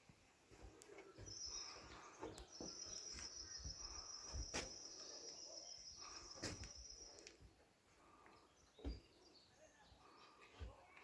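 Faint high, steady trill, sounding briefly about a second in and then held for about five seconds, over a few scattered knocks.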